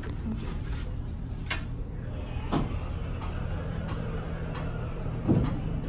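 Elevator car running: a steady low hum, with a couple of short knocks, the louder one about five seconds in.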